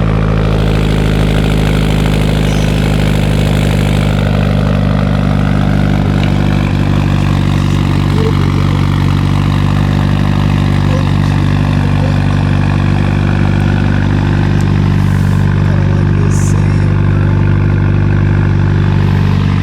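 Car engine idling steadily, its even hum unchanged throughout.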